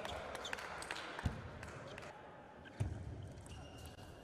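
Table tennis rally: the ball clicking sharply off the rackets and the table in quick, uneven succession, with two dull, heavier thumps about a second and about three seconds in.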